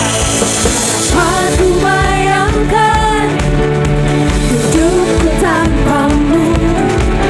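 Church worship band and singer performing a praise song, a sung melody over a steady beat.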